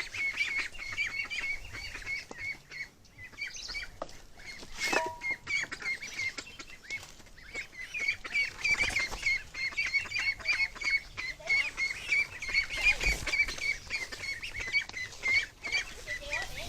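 A flock of domestic ducks quacking continuously, many short calls overlapping, with a brief lull about three seconds in and a louder stretch about halfway through.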